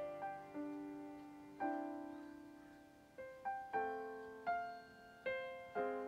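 Slow, gentle piano music: single notes and chords struck every half second to a second or so, each left to ring and fade.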